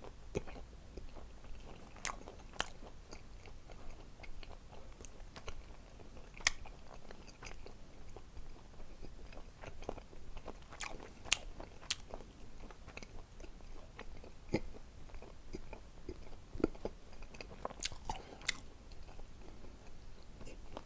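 A person chewing a mouthful of gochujang-seasoned dried shredded squid, with scattered sharp wet mouth clicks and smacks.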